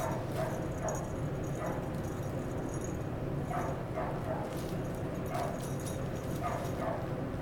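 Short animal calls, about eight of them, each under a second and spaced a second or so apart, over a steady low background hum.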